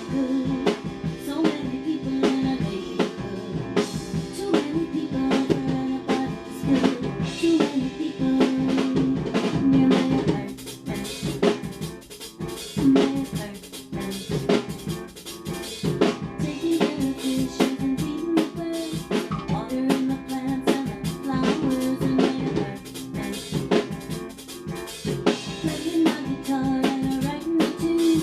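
Drum kit playing a steady rock beat with kick drum, snare and cymbals, over held low-pitched notes from another instrument, like an instrumental stretch of a band mix.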